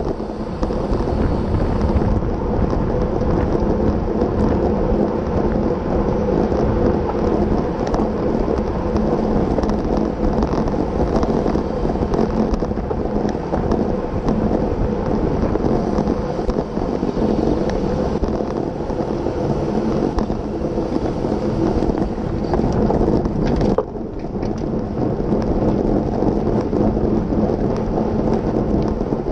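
Wind buffeting the microphone of a cyclist's action camera at race speed, with the steady rumble of road-bike tyres on pavement. It drops off briefly about five seconds before the end, then picks up again.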